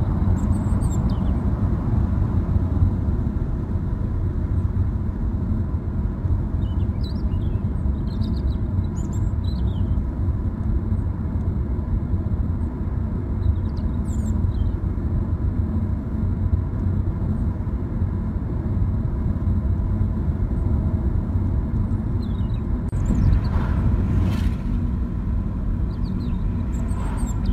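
Steady low rumble of a car driving at speed, tyre and engine noise heard from inside the cabin, with faint high squeaks now and then and a brief louder rush near the end.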